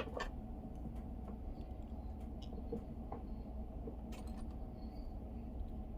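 A sharp click at the very start, then a few faint scattered ticks of small parts being handled over a steady low hum.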